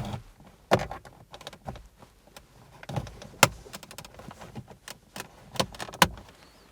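Plastic car door trim panel being pried loose with a plastic trim-removal tool: scattered sharp plastic clicks and knocks, a few louder snaps, the loudest about halfway through and near the end.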